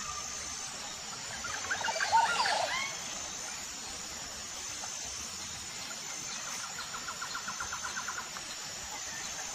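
Outdoor ambience of birds and insects: a steady hiss with a faint, repeating high tone, and a burst of bird chirps about two seconds in as the loudest sound. Near the end comes a fast trill of about ten ticks a second lasting under two seconds.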